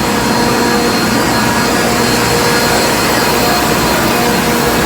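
Ammonia refrigeration compressors running in a ship's reefer plant: a loud, steady machinery noise with a constant hum and a few steady tones on top.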